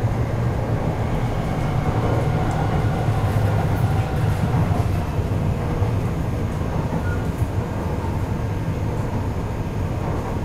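Taipei Metro C381 train heard from inside the passenger car while running between stations: a steady low rumble of wheels on rail and running gear.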